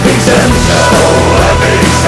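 Loud rock song playing, in a stretch between sung lines.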